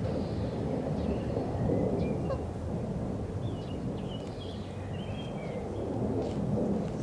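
Outdoor ambience: a steady low rumble, with a few faint short chirps around the middle.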